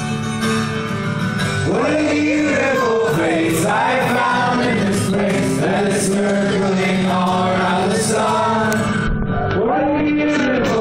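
A man singing a folk song live to his own strummed acoustic guitar, recorded from the audience in a theatre. The guitar plays alone at first, and the voice comes in about two seconds in.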